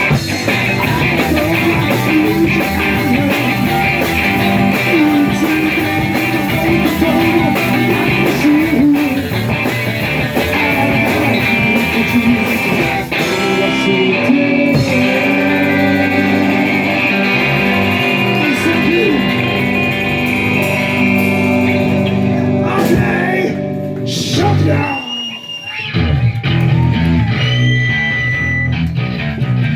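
A live rock band playing, with electric guitar prominent. About 25 seconds in the music thins out for a moment, with sliding guitar notes, then the full band comes back in.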